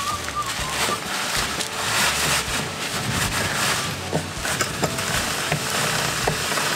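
Degreaser spraying and hissing onto a motorcycle's rear wheel hub, with a low rumble underneath and a few light clicks.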